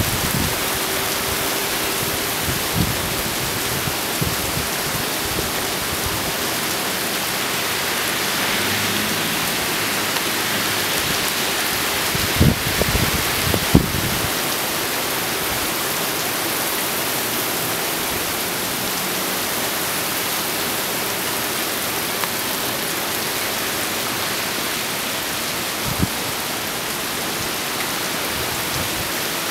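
Heavy hurricane rain hissing steadily, wind-driven and torrential. A few brief low thumps stand out, two close together around the middle and one near the end.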